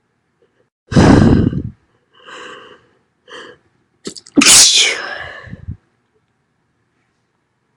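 A woman sneezing loudly twice. The first sneeze comes about a second in, followed by short catching breaths, and a second, longer sneeze about four seconds in is the loudest.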